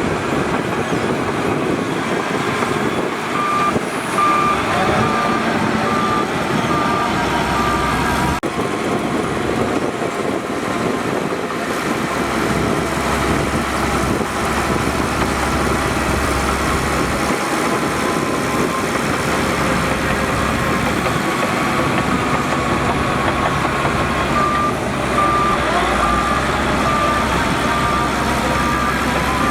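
Heavy earthmoving machinery running steadily: a bulldozer and diesel dump trucks. A reversing alarm beeps about twice a second for several seconds, starting a few seconds in, and again near the end.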